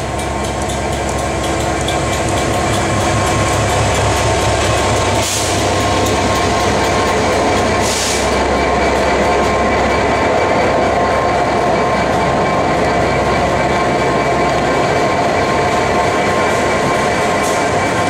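A train running past on the rails, a loud steady rumble of wheels and coaches that swells over the first few seconds, with two short hisses about five and eight seconds in.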